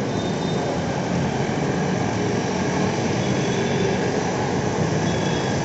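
Steady rumble and hiss of passing vehicles below a footbridge, with faint thin high squealing tones a few times.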